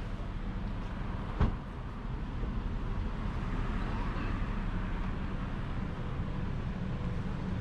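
Street traffic noise: a steady low rumble of passing cars, with a single sharp knock about one and a half seconds in.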